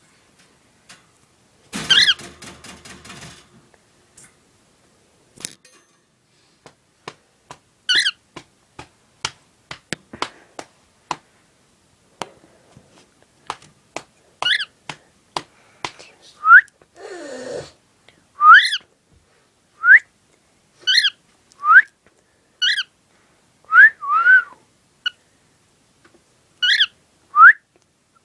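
Cockatiel whistling its song: short rising whistled notes, about one a second in the second half. There is a harsh squawk about two seconds in and scattered small clicks.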